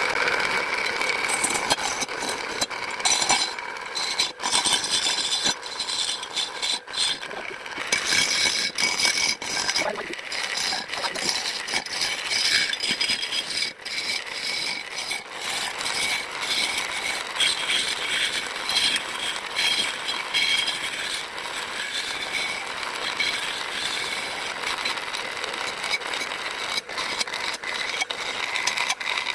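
Wood lathe running while a cutting tool scrapes and shaves a spinning wooden cot leg. A steady motor whine runs under continuous scraping, with frequent small knocks as the tool bites.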